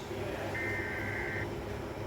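A short EAS SAME digital header burst about half a second in, lasting just under a second: two high data tones sounding together, played over a steady low hum.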